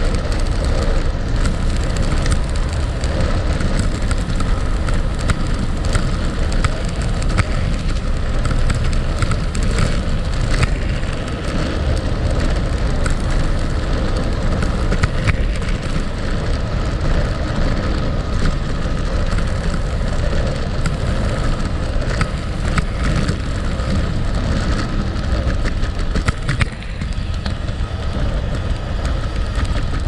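Gravel bike tyres rolling over a gravel road: a steady rushing crunch of loose stones, dotted with many small ticks and crackles.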